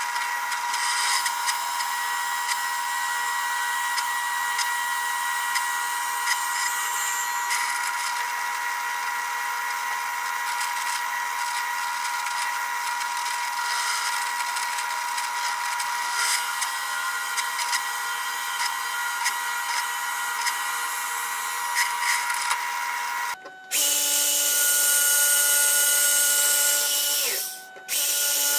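Drill press running and boring into wood, a steady machine noise with a thin high whine, for about 23 seconds before it stops. A different steady machine sound with a lower hum follows and breaks off briefly near the end.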